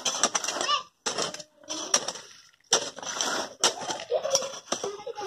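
A hoe blade chopping into dry, clumpy soil about once a second, each stroke a sharp thud followed by the scrape and crumble of earth being dragged back.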